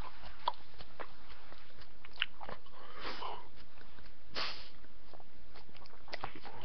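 A person chewing a raw habanero pepper close to the microphone: scattered wet mouth clicks and crunches, with two short breathy hisses about three seconds in and again a second and a half later.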